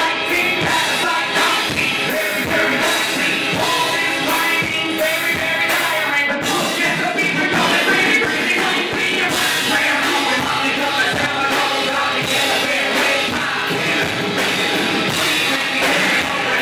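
Live rock band playing loud: electric guitar, a drum kit with steady cymbal and drum hits, and a vocalist singing into a microphone.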